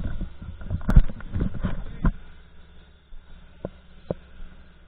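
Knocks and rubbing of a mask-mounted action camera being handled, loud and irregular for about two seconds, then a low steady hum with two sharp clicks near the end.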